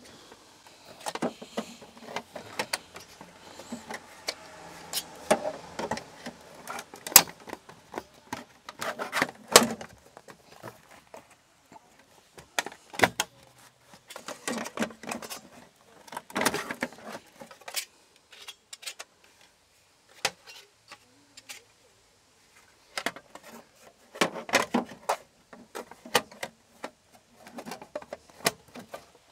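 Plastic trim hatch at the base of a Mercedes Marco Polo's rear bench seat being pushed and jiggled back into place: irregular clicks, knocks and rattles of the panel and its spring catch against the seat base. The bouts of knocking pause for a few seconds after the middle.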